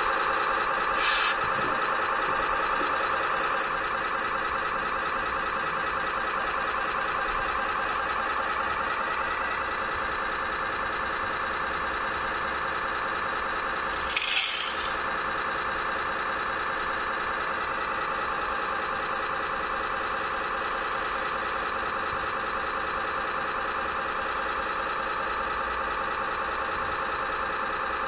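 RC model construction machines running: a steady mechanical whirring, with a brief hiss about a second in and a louder hiss about fourteen seconds in.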